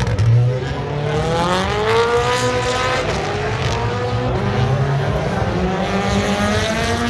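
Rally car engine under hard acceleration on a tarmac-and-gravel special stage, its note climbing, dropping back about three seconds in, and climbing again.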